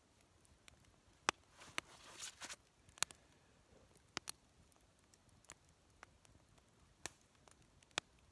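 Campfire crackling: single sharp pops of burning wood at irregular intervals, roughly one a second, with a brief rustle about two seconds in.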